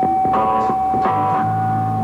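Electronic synthesizer music: a steady high tone held throughout, with clusters of stacked notes sounding about a third of a second in and again about a second in, over low sustained bass notes that enter about a second in.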